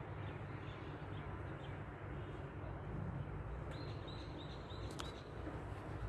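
Steady background noise with low rumble, and a small bird chirping a quick run of short high notes a little under four seconds in, with a sharp click soon after.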